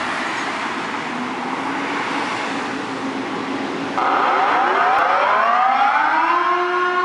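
Outdoor civil-defence warning siren sounding its monthly test. It starts suddenly about four seconds in, its pitch rising and then levelling off into a steady wail with strong overtones. Before that there is a steady background hiss with a faint low tone.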